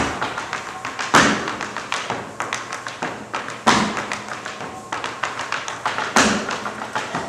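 Tap dancing: rapid metal-tapped shoe strikes on a stage floor. Heavy stamped accents land roughly every two and a half seconds.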